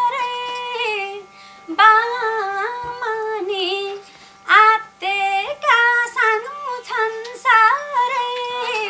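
A woman singing a dohori folk-song line unaccompanied, in a high voice with ornamented, wavering phrases broken by two short pauses. A faint steady low hum sits underneath and stops near the end.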